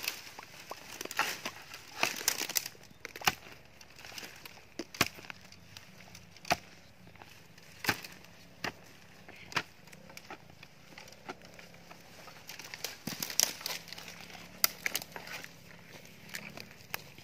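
Footsteps crunching through dry leaf litter and snapping dead twigs and branches, with irregular sharp cracks in quick clusters.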